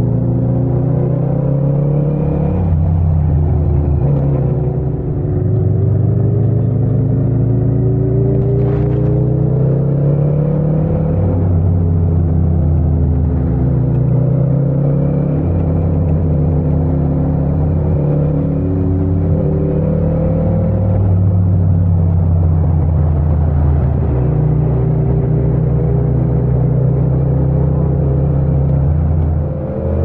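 Yamaha MT-07's 689 cc parallel-twin engine running under way, heard from the bike with no wind noise. Its pitch climbs over a few seconds and drops back again and again as the throttle is rolled on and off.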